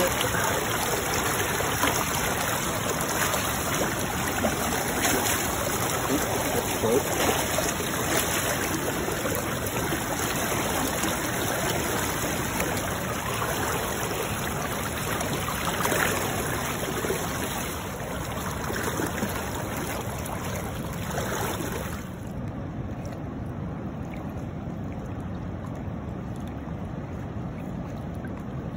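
Shallow river current rushing steadily, with some splashing around hands and a salmon held in the water. About three-quarters of the way through the sound turns duller and a little quieter.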